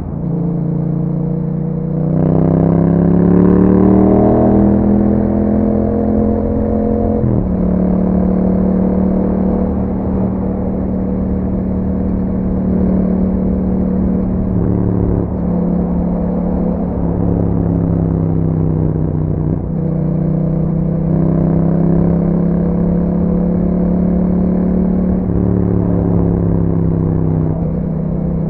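Yamaha MT-07's parallel-twin engine running through an Akrapovic exhaust with a dB killer fitted, while riding. Its pitch rises under acceleration about two seconds in, then changes abruptly a few times at gear shifts and throttle changes, with steadier cruising between.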